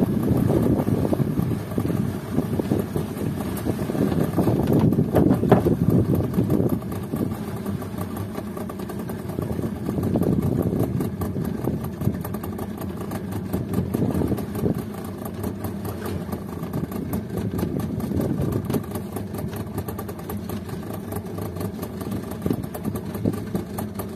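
Outboard motor running steadily, pushing a small wooden boat along at trolling speed, with the rush of water along the hull; the level swells and eases every few seconds.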